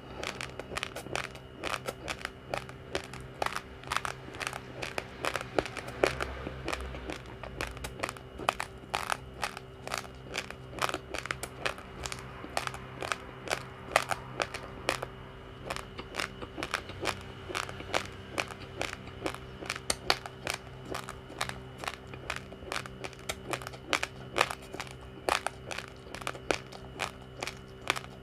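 Uncooked rice grains being chewed: a continuous run of sharp crunches, several a second, over a steady low hum.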